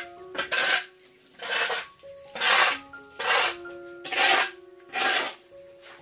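Metal shovel scraping across a hard floor and scooping into a heap of damp litter, about once a second.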